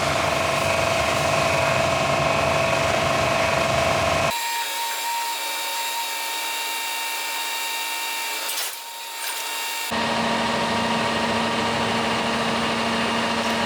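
Diesel-fired steam cleaner (hot pressure washer) running steadily with a high whine. The sound changes abruptly twice, thinner with no low rumble in the middle stretch and fuller again near the end.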